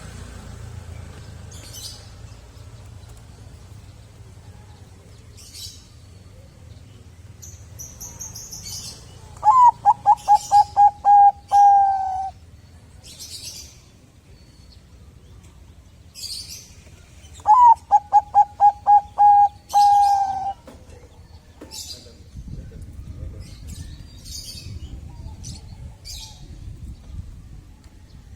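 Bangkok-type zebra dove (perkutut) singing: two phrases of quick staccato coos, each ending in a longer drawn-out note. Faint high chirps of small birds come and go throughout.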